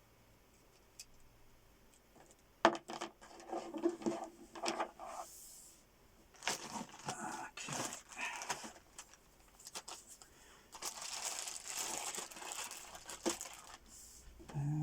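Microphone packaging being handled: crinkling and rustling of wrapping, with small clicks and knocks. It comes in three stretches after a quiet first couple of seconds.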